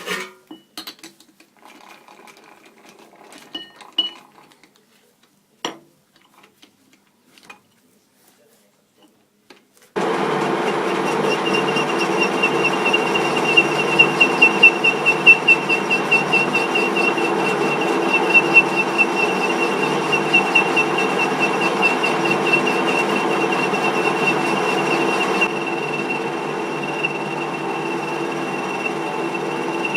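Scattered light clicks of handling, then a metal lathe that starts running abruptly about ten seconds in, with a steady machine noise, a low hum and a thin high whine on top.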